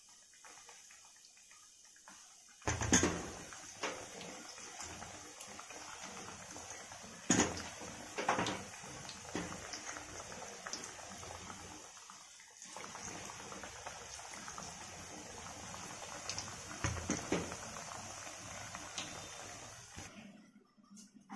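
Batter-coated banana slices deep-frying in hot oil in a kadai: a steady sizzle and bubbling, with a few sharp knocks of a spatula against the pan. The sizzle cuts off near the end.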